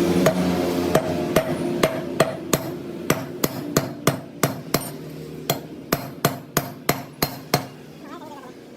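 A hammer striking metal in a quick run of about nineteen ringing blows, roughly three a second, with a short pause midway, over a machine hum that fades away.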